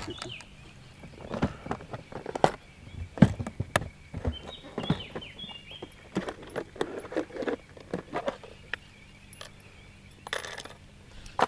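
Scattered light clicks and clinks at irregular intervals, with a short run of quick falling bird chirps about four and a half seconds in.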